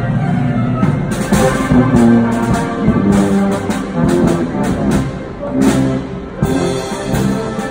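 Live military wind band playing a piece: sustained brass chords with tuba and trombones, and percussion strikes keeping a regular beat.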